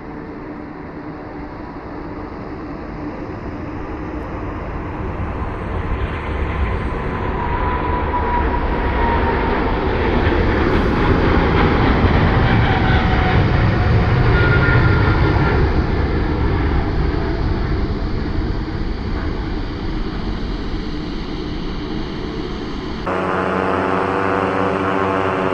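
An airplane passing close by. Its engine noise swells to its loudest about halfway through, with a whine sliding down in pitch as it goes past, then eases off. Near the end the sound cuts abruptly to a different, steady droning engine sound.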